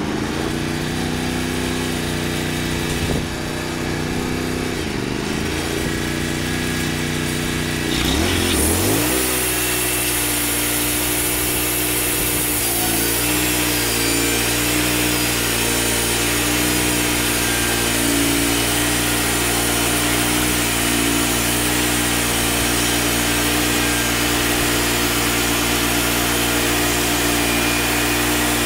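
Wood-Mizer LT35 portable band sawmill running, its engine steady at first; about eight seconds in the engine pitch shifts and a steady hiss of the band blade cutting joins it as the saw head feeds along a pine log.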